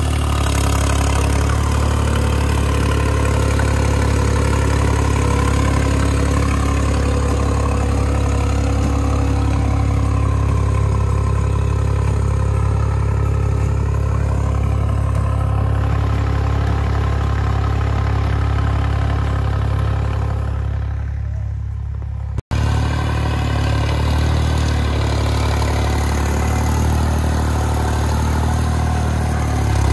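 New Holland 5620 tractor's diesel engine running steadily under load while pulling a potato planter. The sound cuts out for an instant about three-quarters of the way through, then carries on the same.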